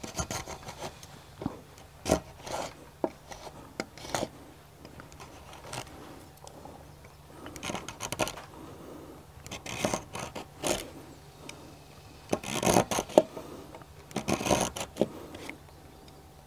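Curved-sole spokeshave shaving the radius of a timber scarf: a run of short scraping strokes of the blade across damp, nearly quarter-sawn wood, cutting against the grain. The strokes come louder and closer together in the last few seconds.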